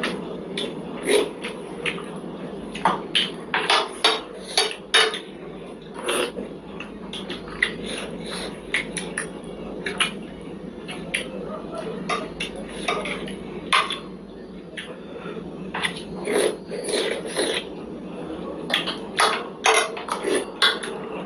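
Close-up eating sounds: irregular clinks of cutlery on plates, with mouth noises from eating momo dumplings, busier near the start and again toward the end.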